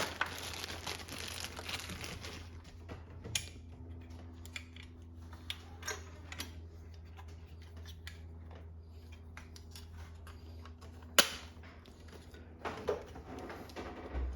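Scattered small clicks and taps of objects being handled, with one sharp click about eleven seconds in, over a steady low hum.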